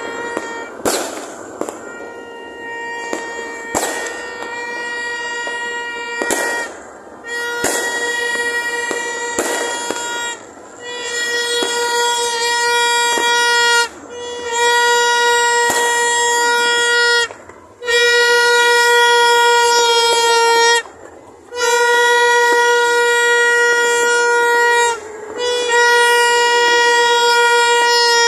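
A horn sounding one steady note in repeated long blasts of two to three seconds with short breaks, growing louder after the first few seconds. Scattered firework bangs go off during the first ten seconds.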